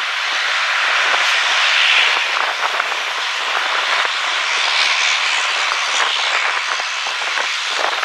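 Dornier 228's twin turboprop engines running as the aircraft taxis: a steady rushing noise, slightly louder about two seconds in.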